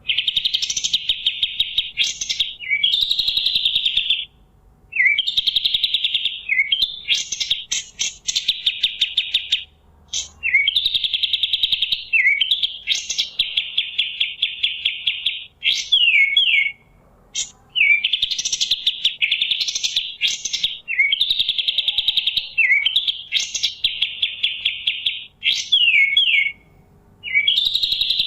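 A kapas tembak singing vigorously: long, rapid, buzzy trills of one to two seconds, repeated with short pauses and broken by quick sweeping notes.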